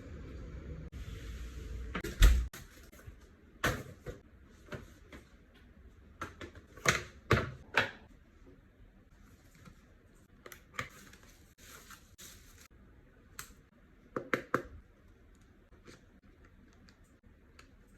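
Scattered sharp clicks and knocks of hard plastic being handled, as a tactical phone mount case is worked on. A low rumble of handling noise fills the first couple of seconds.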